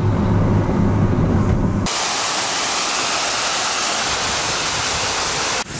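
A low rumbling noise for about two seconds, then a sudden cut to a steady, even hiss that stops abruptly near the end.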